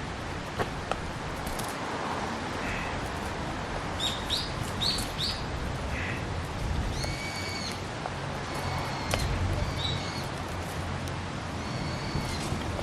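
Birds chirping and calling in short repeated phrases over steady background hiss, with a few sharp pops from a wood fire crackling.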